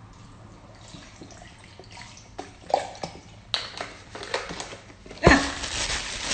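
Oat milk pouring from a carton into a blender cup, with a few small knocks. About five seconds in, a plastic bag starts rustling loudly.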